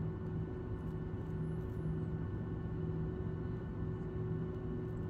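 Cabin noise of a Boeing 737-700 taxiing: a steady low rumble with the steady hum of its CFM56-7B engines at idle.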